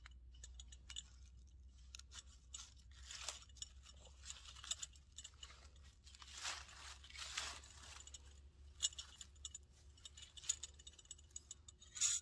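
Faint clicks, clinks and scrapes of a small camping gas stove being handled: the burner is fitted onto a Campingaz gas cartridge, and its metal pot supports are folded out. Brief rustling is mixed in, and a sharper click comes near the end.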